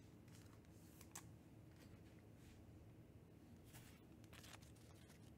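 Near silence: low room hum with a few faint clicks and rustles of trading cards being handled and set down.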